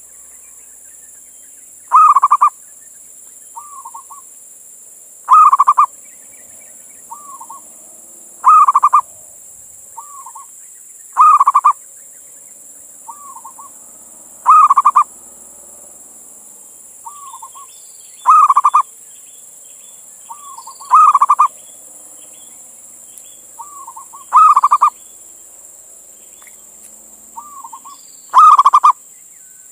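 Male zebra dove (perkutut) cooing its repeated song phrase, a loud call about every three seconds, nine in all, each followed by a shorter, quieter note. It is a male calling to a female, the kind of call used as a lure to set other perkutut calling.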